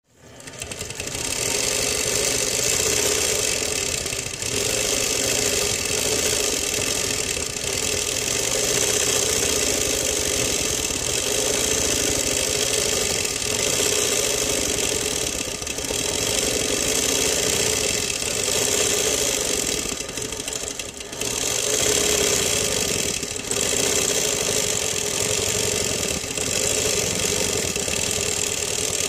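Longarm quilting machine running and stitching steadily, its motor and needle going at a constant rate. The running eases off briefly every few seconds, longest about three quarters of the way through.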